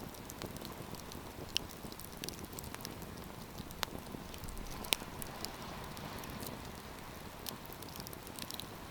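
Campfire crackling: irregular sharp pops and snaps over a soft steady hiss, the loudest pop about five seconds in.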